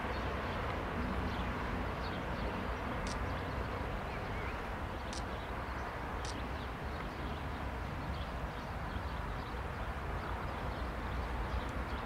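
Airbus A319 jet engines running at low power as the airliner rolls out along the runway after landing: a steady rumble and hiss with a faint whine, and a few short high ticks.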